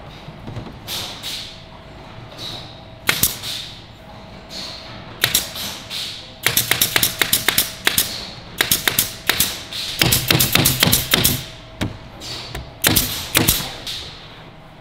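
Nail gun firing in quick runs of sharp shots, about four or five a second, fastening a thin back panel onto a plywood drawer carcass. A few single knocks from the panel being placed come before the runs.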